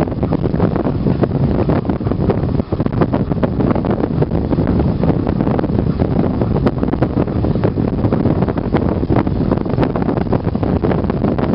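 Wind buffeting the microphone over the steady rumble and rattle of an ATV rolling along a rough dirt trail behind a running sled-dog team, with frequent small knocks from bumps.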